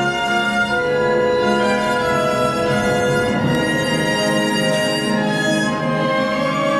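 Orchestral ballet music for a pas de deux, with a violin carrying the melody over the strings.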